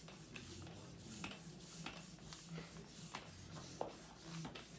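Faint rubbing and scattered light clicks as a fat-bike tire is handled and the wheel is turned by hand.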